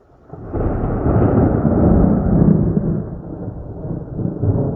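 Thunder: a loud peal that breaks a moment in and rolls on as a long, deep rumble, easing off and then swelling again near the end.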